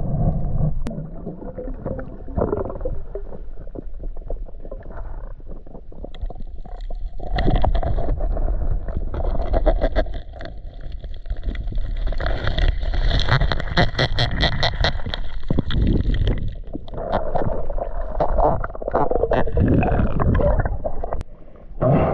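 Muffled underwater sound from a camera held below the surface: a low rumble and gurgling of moving water with a dense crackle of clicks and bubbles, busiest in the middle. Near the end the camera breaks the surface.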